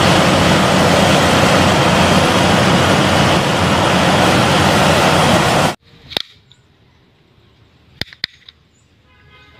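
Loud, steady vehicle engine noise that starts suddenly and cuts off abruptly after about six seconds. A few sharp clicks follow, as of plastic toys being handled.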